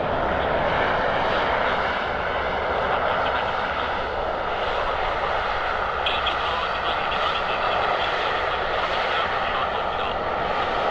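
Bombardier Dash 8 Q400 (DHC-8-402Q) twin turboprop running steadily, a constant propeller and engine noise with a whining tone that grows stronger about halfway through.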